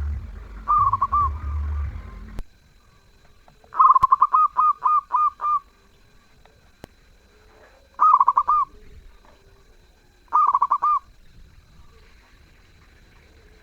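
Zebra dove (perkutut) cooing: four phrases of quick, bubbling coos, the longest, about four seconds in, a run of several rapid notes. A low hum stops about two seconds in.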